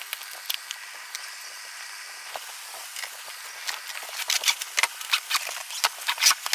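Cardboard shipping carton being opened and handled by hand: scattered scrapes and crackles of cardboard and packing, getting busier and louder from about four seconds in as the boxes inside are slid out.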